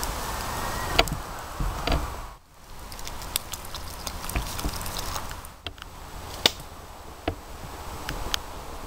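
Small wood campfire crackling with scattered sharp pops and cracks. Near the middle, water is poured from a plastic bottle into a metal pot hanging over the fire.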